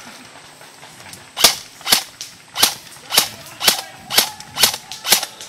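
Eight sharp gun shots fired one at a time, about two a second, starting a little over a second in.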